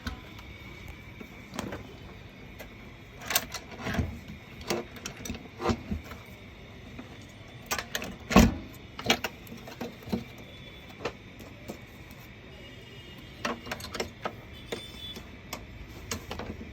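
Irregular clicks and knocks of plastic and metal parts being handled while a paper shredder is taken apart to remove its motor, with one louder knock about halfway through.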